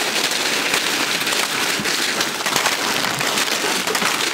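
Many snack-chip bags crinkling and rustling as they tumble out of a cardboard box: a dense, steady crackle of plastic packets.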